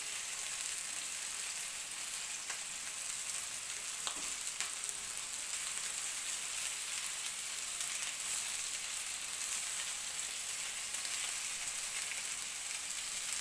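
Meatballs shallow-frying in hot oil in a pan, a steady sizzle, with a few light clicks as tongs turn them against the pan.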